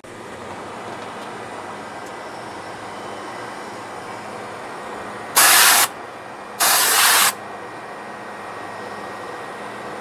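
Freezer condensing unit's fan running steadily, with two short, loud hissing blasts of compressed nitrogen from a blow nozzle about five and six and a half seconds in, blowing dust out of the dirty condenser coil.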